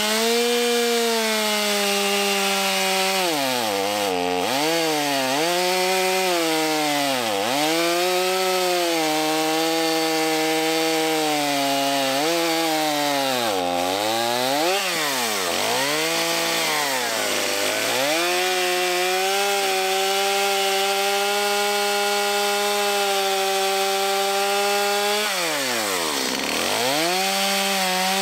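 Stihl MS 250 two-stroke chainsaw with an over-tightened chain cutting firewood near full throttle. The engine note drops sharply and climbs back many times, and holds high and steady for stretches between. The owner hears this as the saw lugging against the tight chain.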